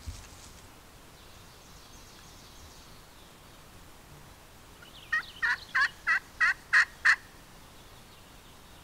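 A quick series of seven turkey yelps, evenly spaced at about three a second and getting louder, about five seconds in. A brief low thump comes at the very start.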